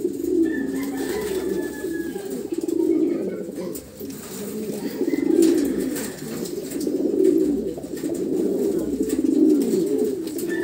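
Several racing pigeon cocks cooing at once: many overlapping low coos rising and falling without a break.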